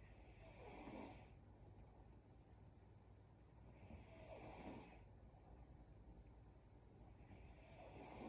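A sleeping woman snoring faintly in an even rhythm: three snores, each about a second long, coming roughly every three and a half seconds.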